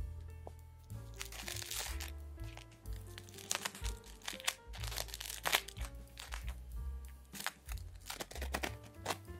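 A knife spreading butter on a toasted English muffin half: a series of short, crisp scraping strokes across the toasted crumb, over background music.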